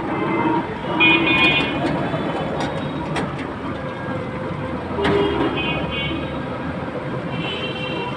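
Street traffic heard from a moving rickshaw van on a wet road: a steady rumble and tyre noise, with short high horn toots about a second in, around five and a half seconds, and again near the end.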